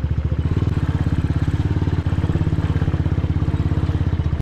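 Motorcycle engine running steadily under way, with a fast even chugging beat.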